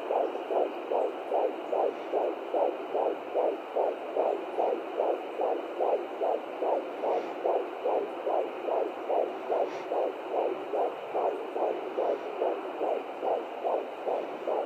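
Fetal heartbeat at 15 weeks picked up through a home fetal Doppler monitor's speaker: a fast, steady pulsing of about two and a half beats a second, roughly 150 beats a minute.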